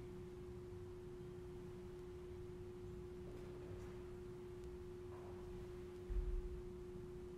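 A single steady pure tone, held without change, with a soft low thud about six seconds in as a knee comes down in a genuflection.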